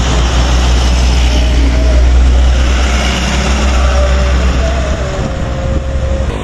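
Diesel trucks driving past at close range on a highway: a loud, steady low engine rumble with tyre noise on the asphalt, easing slightly near the end.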